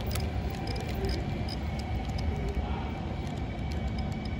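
HO-scale model passenger cars rolling along the track: a steady low rumble with scattered light clicks from the wheels on the rails.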